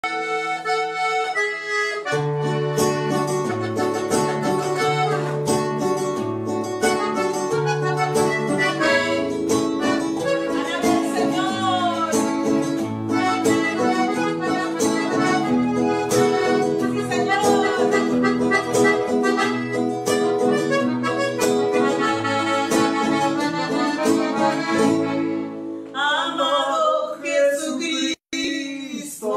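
Piano accordion and strummed acoustic guitar play an instrumental introduction, with the accordion carrying the melody over the guitar's bass notes. Near the end the bass drops away and a woman's singing voice comes in, with a brief cut-out in the sound.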